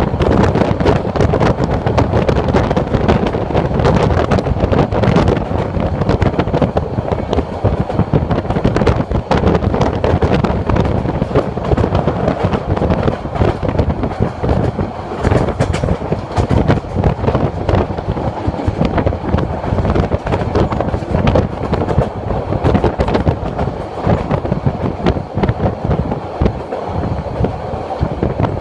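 Sonar Bangla passenger train running at speed, heard from an open carriage window: rushing wind and a dense, steady clatter of wheels over rail joints and points.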